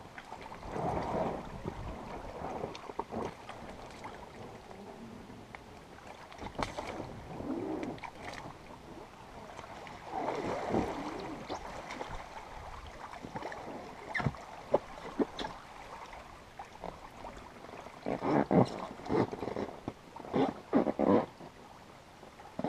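An Alpacka packraft being launched from a rocky lakeshore: the inflatable hull sloshing and scraping through the shallows as it is pushed out, then irregular paddle splashes, with a run of short, louder splashes near the end.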